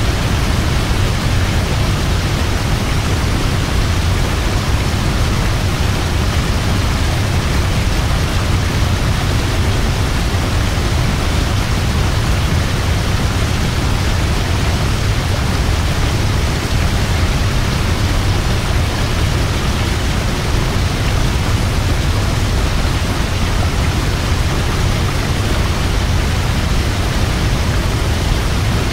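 Large waterfall: a steady, dense rush of falling water, strongest in the deep low notes, with no change in level.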